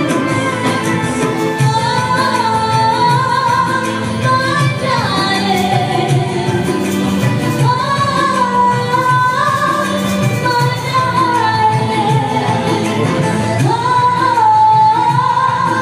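A woman singing a pop song into a microphone through a PA, over continuous instrumental accompaniment.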